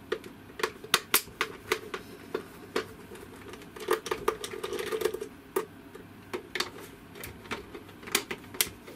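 Screws being undone from the plastic back casing of a Daewoo SDA1247 with a screwdriver. Sharp, uneven clicks come one to two a second, with a short scraping rub about four seconds in.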